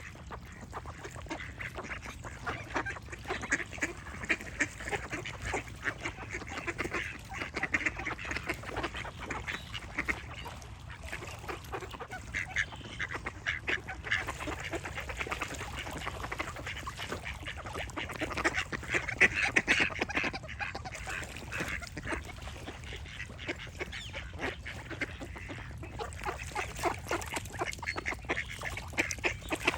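A flock of ducks quacking continuously, many short calls overlapping, over a low steady background rumble.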